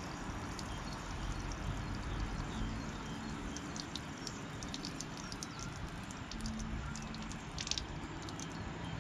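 Water trickling and dripping out of the cleared drain holes in a Mercedes Sprinter van's rear sill: a steady trickle with scattered small drips. The sill was full of trapped water behind blocked drain holes.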